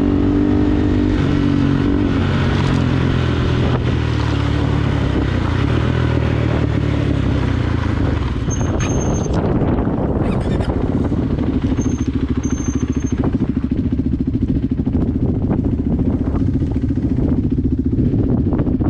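Motorcycle engine running under way on a dirt and gravel track, its pitch shifting up and down in the first half, then settling into a steadier, lower drone. Scattered clattering ticks run through the second half.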